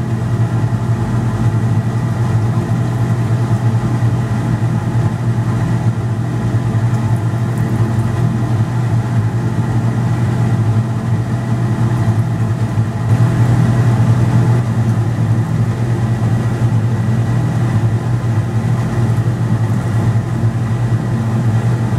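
Fume hood exhaust fan running with a steady hum.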